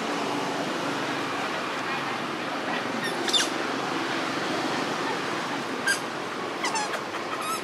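Steady outdoor background hiss with a few short, sharp high chirps, the first about three seconds in and several more near the end.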